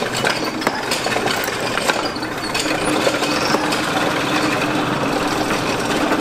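Bituminous coal forge fire blown by a lever-worked bellows: a steady rushing roar with dense crackling and popping from the burning coal as the fire is brought up to heat the steel.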